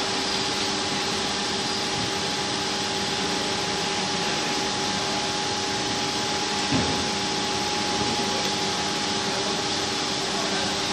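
Single-wall corrugated hose production line running: a steady mechanical hum and whir with a constant high whine and a few lower steady tones.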